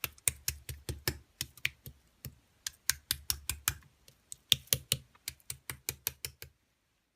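Typing on a computer keyboard: a quick, uneven run of key clicks, about five a second, that stops abruptly near the end.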